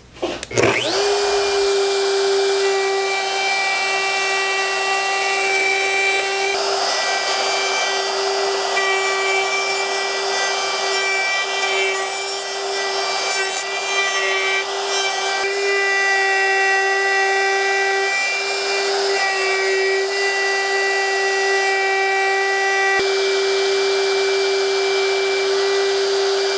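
DeWalt compact router spinning up about half a second in, then running with a steady whine as its bit cuts out an inlay pocket in end-grain cherry.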